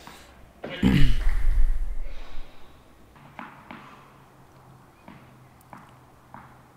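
A man's short cry falling in pitch, then a tennis ball bounced on the court about five times as the server gets ready, each bounce a sharp tap.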